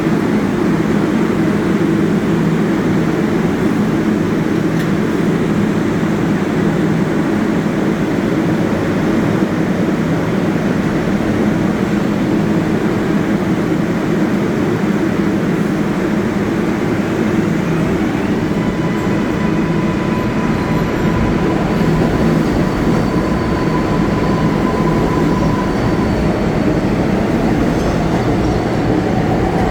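Subway train running at an underground terminal station, with a steady rumble of wheels on rail. A thin, high-pitched whine joins about two-thirds of the way through, and a rising whine comes in near the end.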